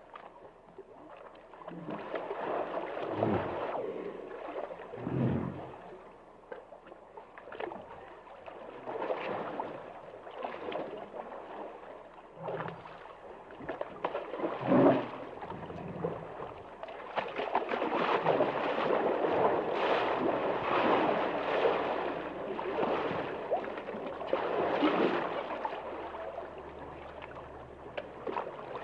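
Hippos in water: gurgling, sloshing water that swells and fades in waves, with a few short, low grunt-like sounds in the first half.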